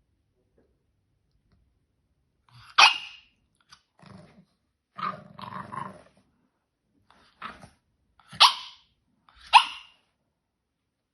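Small French bulldog barking: four short, sharp barks spread over several seconds, the first and the last two the loudest, with a longer, rough, low growl between the first bark and the others.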